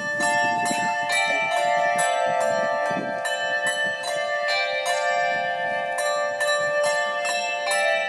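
A set of tuned bells ringing a carol tune: one bell after another at a steady two to three strokes a second, each note ringing on and overlapping the next.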